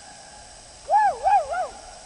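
A person's high whooping calls: three quick rising-and-falling whoops about a second in, in celebration after a ski run, over a steady faint hiss.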